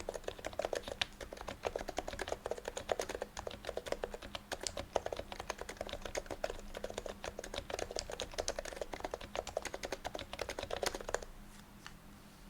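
Sho Snipe Topre keyboard with aged HHKB Pro 2 domes on an aluminium plate, silencing rings and OEM keycaps, being typed on at a slow pace. The keystrokes are a steady run of muted clacks that stops about a second before the end.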